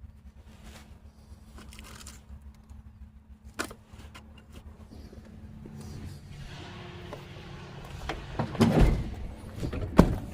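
Hands rummaging through parts and packaging: a click, then rustling, and a few sharp knocks and clunks near the end.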